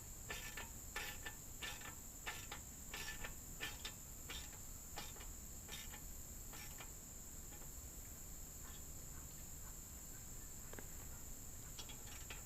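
Steady chorus of crickets, with a run of short clicks or scuffs over the first half or so.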